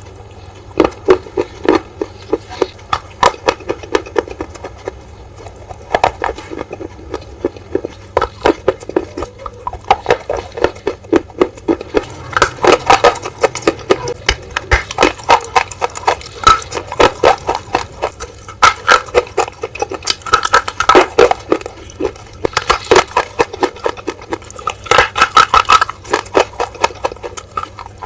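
Close-miked crunching as hard, brittle bars are bitten again and again. Each bite gives a burst of sharp crackling snaps, with the heaviest bites about halfway through, about two thirds of the way in and near the end.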